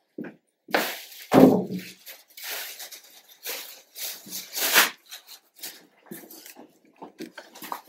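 Handling and rustling noises from a backpack being packed on a wooden table, irregular and uneven, with one heavy thump about a second and a half in.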